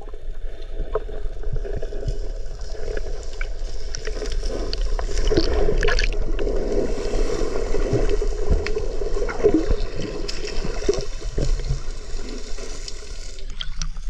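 Muffled underwater sound of sea water picked up by a submerged camera: steady sloshing and gurgling with scattered small clicks, changing as the camera comes up out of the water near the end.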